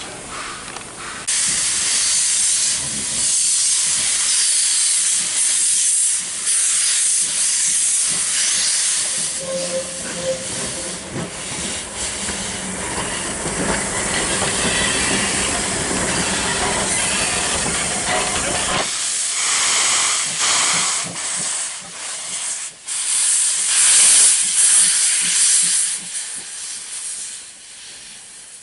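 USATC S160 2-8-0 steam locomotive moving slowly with its cylinder drain cocks open, giving a loud, steady hiss of escaping steam. The hiss starts abruptly about a second in, thins for a few seconds about two-thirds of the way through, swells again, then fades near the end.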